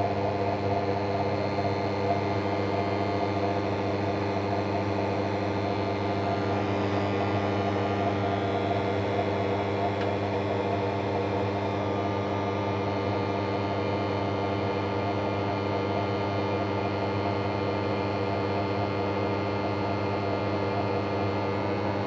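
Old Hotpoint Electronic 1000 Plus 9534 washing machine running with a steady electrical hum, unchanging and without pauses.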